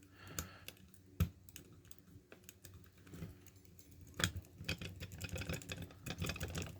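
Small metal clicks and scrapes of a flat tension tool being worked into the keyway of a Master Lock M50 padlock: scattered single clicks at first, then a quick run of small clicks from about four seconds in.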